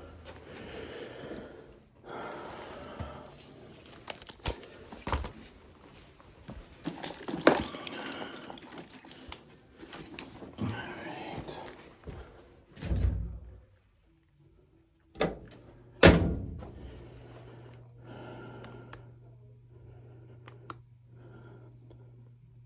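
Knocks, clunks and handling noise of hands working on a gas furnace, with a sharp loud thunk about 16 seconds in. After the thunk a low steady hum carries on.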